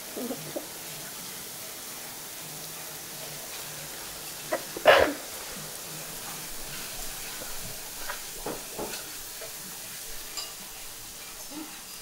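Liquid nitrogen boiling in a steel bowl of ice cream mix as it is stirred with a spoon: a steady frying-like sizzle. A short, louder burst stands out about five seconds in.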